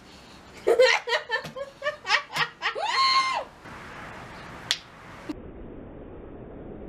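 A group laughing in quick bursts, then one long rising-and-falling whoop, followed by a single sharp hand slap from a high five. After that only a low steady hiss remains.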